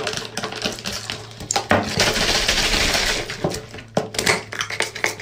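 Kitchen dishes and utensils being handled, clinking and knocking several times, with a steady hiss lasting about a second near the middle.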